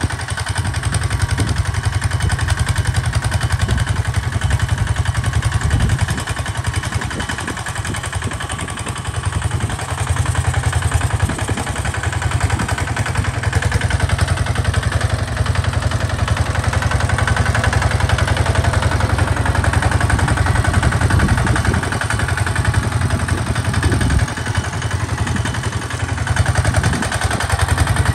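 Single-cylinder diesel engine of a two-wheel walking tractor running steadily under load as it pulls a disc plow through sandy soil, a fast even beat of firing strokes with some mechanical clatter.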